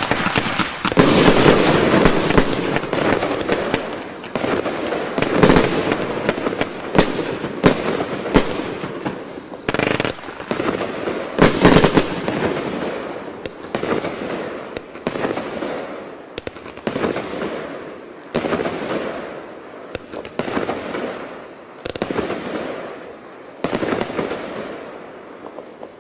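#WATT Imaginator 19-shot, 25 mm firework cake firing: a long series of sharp shots and bursts at uneven intervals, each trailing off briefly, growing fainter and sparser toward the end as the cake burns out.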